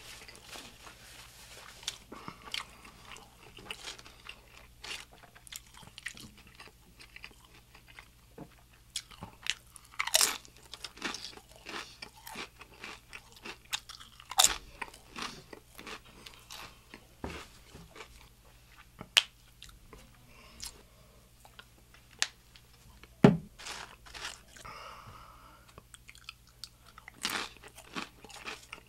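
Close-miked crunching and chewing of crisp tortilla chips, with sharp crunches scattered throughout, the loudest about two-thirds of the way through.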